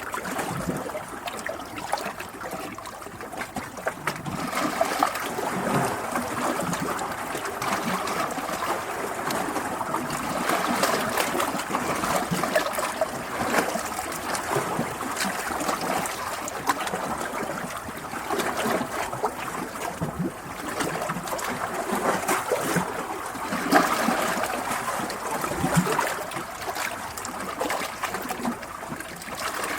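Flowing water running steadily, a continuous wash of small splashes and ripples that swells and eases a little.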